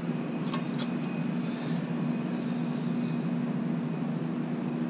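Steady mechanical hum of the shop's background machinery, holding one constant tone, with two faint light clicks a little under a second in from rivets and a small aluminium part being handled.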